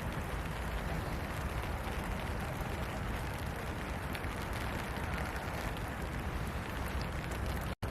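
Steady rain falling, an even rushing noise with a strong low rumble. The sound cuts out for a split second near the end.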